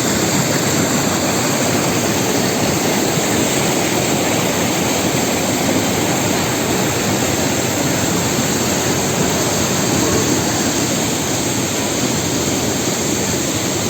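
Waterfall rushing: a loud, steady wash of falling water close to the microphone.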